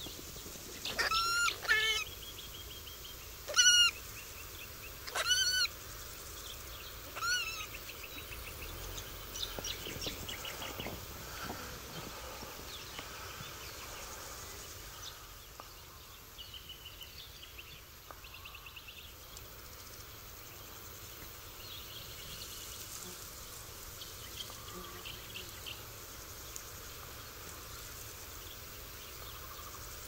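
A flying fox (large fruit bat) caught on a barbed-wire fence screeching in distress while being handled: four loud, harsh calls about two seconds apart in the first eight seconds, then softer short calls and faint rustling.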